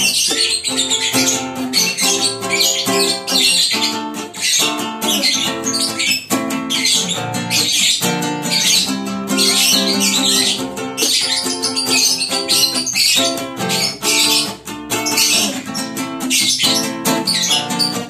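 Acoustic guitar strummed steadily while a lovebird chatters and squawks along in rapid high-pitched bursts, with only brief pauses.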